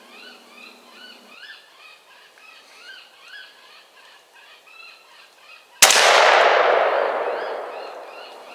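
Small birds chirping faintly in short repeated notes, then about six seconds in a single loud rifle shot that rings out and dies away slowly over about two and a half seconds.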